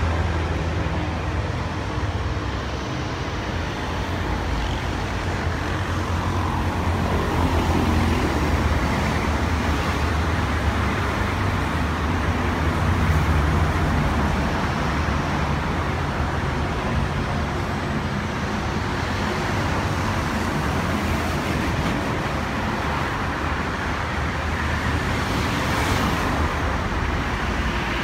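Steady rumble of a jet airliner's engines moving along the runway, blended with street traffic noise.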